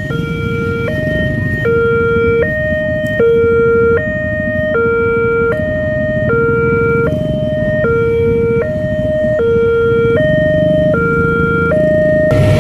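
Railway level-crossing warning alarm sounding its two-tone alternating signal, a lower and a higher note swapping about every three-quarters of a second. It warns that the barriers are down and a train is coming. A steady low rumble of idling vehicles runs underneath, and a louder rush of noise comes in at the very end as the train arrives.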